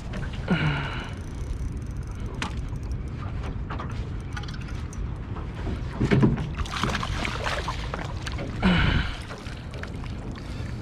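Wind on the microphone and water lapping around a small aluminium boat make a steady low rumble. Three short pitched sounds slide steeply down, about half a second in, around six seconds in and near nine seconds, the middle one the loudest.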